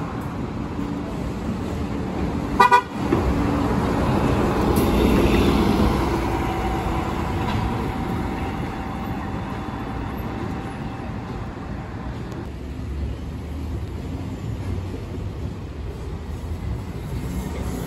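A short, sharp vehicle horn toot about three seconds in, over street traffic as New York City transit buses drive by; the bus engine noise swells a couple of seconds after the toot, then settles into steady traffic noise.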